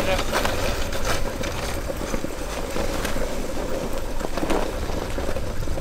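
Kick-sled runners scraping steadily over a packed-snow road while four huskies pull it, with wind rushing over the microphone and the faint patter of paws.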